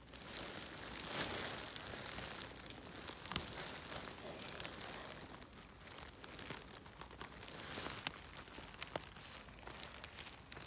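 Footsteps through forest undergrowth: leaves and grass rustling and crunching underfoot, with a few sharp twig-like snaps.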